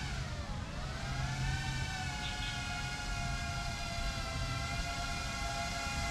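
FPV quadcopter's motors and propellers whining; the pitch drops sharply just after the start as the throttle eases, climbs back within about a second, then holds fairly steady.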